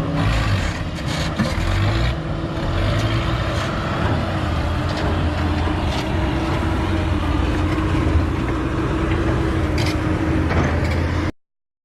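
Heavy diesel engines of a Doosan excavator and a ten-wheel dump truck running steadily as the excavator loads the truck, with an occasional knock. The sound cuts off suddenly near the end.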